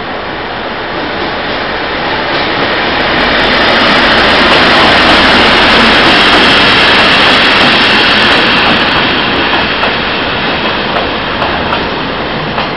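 Taiwan Railway freight train passing close along the platform: the locomotive's engine and wheels grow louder to a peak about four to seven seconds in. A string of open freight wagons then rolls past, a little quieter, with a few wheel clacks near the end.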